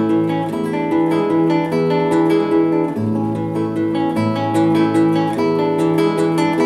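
Nylon-string classical guitar played fingerstyle: a steady, lively run of plucked notes over ringing bass notes, from a set of variations on the Argentine gato folk dance.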